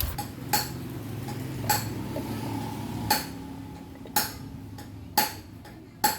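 Sharp metallic clinks of tools or metal parts being handled on a motorcycle, six of them about a second apart, each with a short ring. A low engine hum fades away in the first few seconds.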